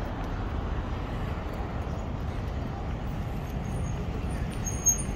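Steady rumble of street traffic, with a brief high-pitched squeak near the end.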